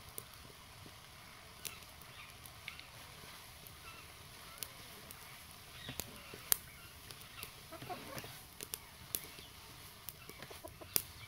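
Chickens clucking in the background over a low outdoor hiss, with scattered sharp clicks and taps from the wood-fired clay-pot cooking, as a wooden spatula stirs greens in the pot over the fire.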